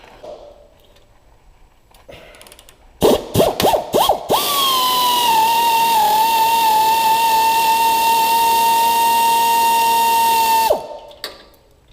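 Power drill loosening the snug bolts on a motorcycle's stock exhaust: a few short trigger blips about three seconds in, then a steady whine for about six seconds that winds down and stops near the end.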